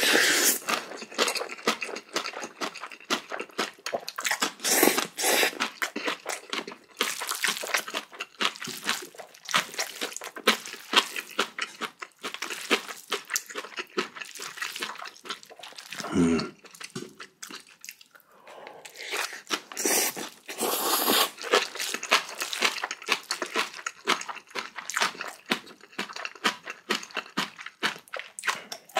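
Close-miked mouth chewing big spoonfuls of spicy bibimbap mixed with kimchi and seasoned vegetables: dense, irregular wet crunching and smacking clicks, with a short low hum or gulp about halfway through.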